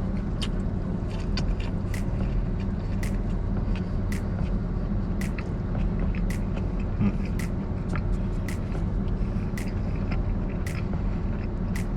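Chewing a pita wrap with lettuce, tomato and onion, with soft clicks and crunches about once a second, over a steady low rumble like a running vehicle or motor.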